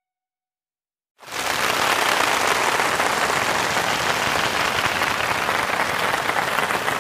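Audience applause that starts abruptly about a second in, after a moment of silence, and carries on steadily.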